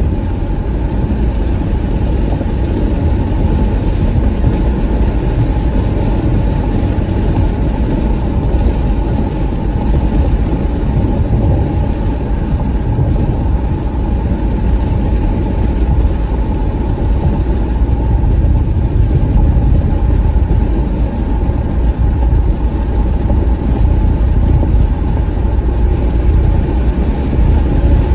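Steady low road-and-engine drone heard inside the cabin of a 2021 Porsche Macan S cruising at highway speed.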